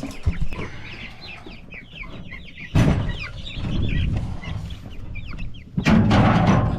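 Young chickens peeping over and over in short, falling high chirps. A loud thump comes about three seconds in, and a longer burst of bumping and rustling near the end.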